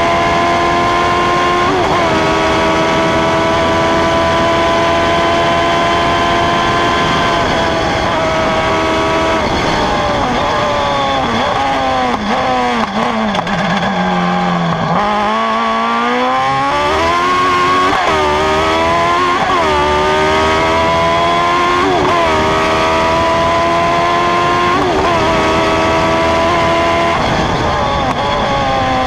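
Engine of a Formula Faster single-seater racing car heard onboard, pulling hard at high revs with a gear change near the start. About a third of the way in, the pitch falls in steps through downshifts under braking to its lowest about halfway, then climbs again through a quick run of upshifts about every second and a half.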